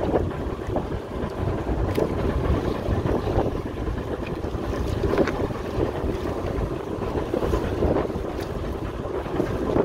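Fishing boat's engine running steadily, with wind on the microphone and light rustling as hands sort through a heap of small fish in the hold.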